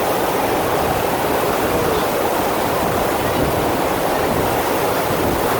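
Steady rush of water from a FlowRider surf machine, its pumped sheet of water pouring continuously up the ride surface.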